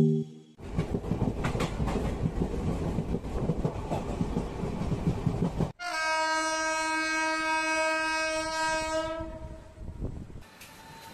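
Passenger train running along the rails with a steady rumble and clatter. About six seconds in, a train horn sounds one long steady blast lasting about three and a half seconds.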